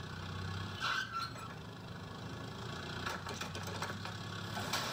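Station wagon engine running at low revs as the car reverses with a boat trailer in tow. Short louder bursts come about a second in, about three seconds in and near the end.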